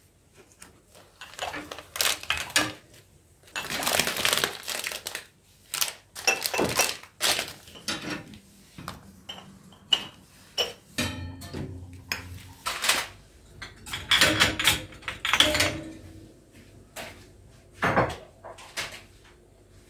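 Irregular clattering and knocking of hard objects being handled, with stretches of scraping or rustling between the knocks.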